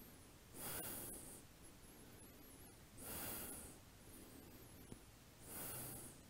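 A person breathing slowly and softly: three long hissing breaths about two and a half seconds apart, held in a steady rhythm during a yoga stretch.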